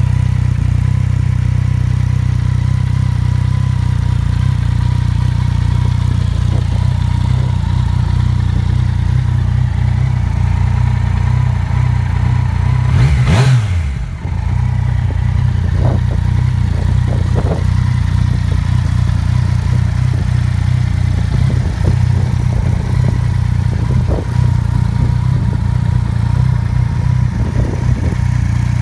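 A Yamaha MT-09 Tracer's three-cylinder engine, fitted with an aftermarket Scorpion exhaust, idling steadily in neutral, with one brief rise and fall in engine speed about halfway through.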